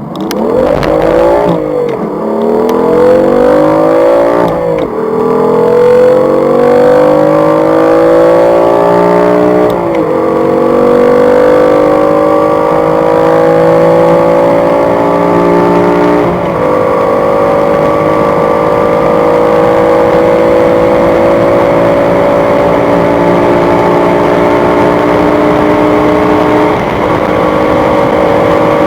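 BMW M3 F80's twin-turbo inline-six under full-throttle acceleration. The engine note climbs in each gear and drops sharply at five upshifts, with the gears lasting longer and the pitch rising more slowly as speed builds.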